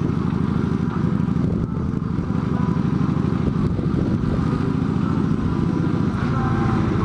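Motorcycle engine running steadily, an even low-pitched firing pulse.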